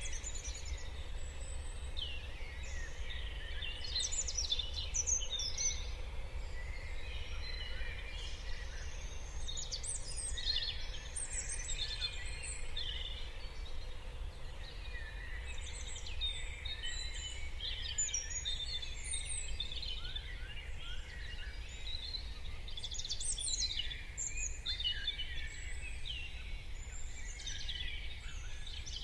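Morning chorus of many songbirds, their chirps and short whistled phrases overlapping continuously, over a steady low rumble.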